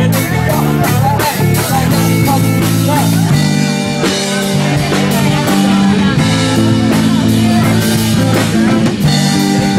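Live band music: a full band playing without a break.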